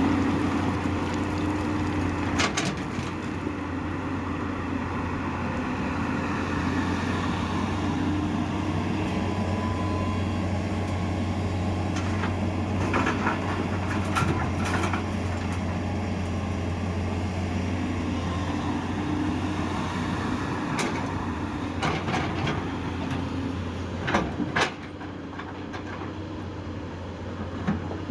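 Hydraulic excavator's diesel engine running steadily under work, with scattered sharp metallic knocks and clanks from the machine; the engine note drops somewhat near the end.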